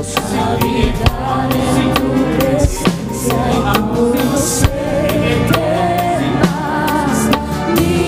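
Live band playing in a sound check: a drum kit keeps a steady beat with kick, snare and cymbal hits under sustained keyboard and guitar lines, with some singing.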